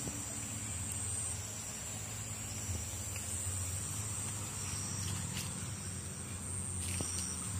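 Forest insects droning in a steady, high-pitched tone, with a low, even rumble underneath.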